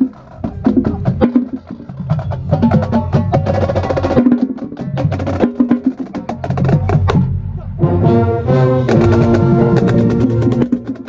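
Marching band playing, heard from beside the first bass drum: sharp drumline strikes, deep drum strokes and brass. About eight seconds in, the brass moves into held chords.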